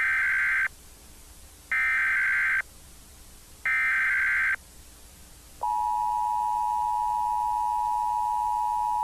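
Emergency Alert System SAME header: three short buzzy data bursts about a second apart. About five and a half seconds in, the steady two-tone EAS attention signal (853 and 960 Hz) starts and holds as a long shrill beep.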